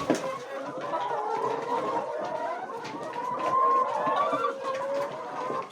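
A flock of laying hens clucking and calling, many birds at once in a steady overlapping chorus.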